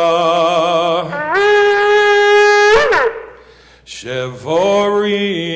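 Shofar sounded in a tekiah, one long blast: it begins on a low note, leaps up to a higher note held for about a second and a half, and breaks off with a downward slide about three seconds in. Another blast starts about a second later.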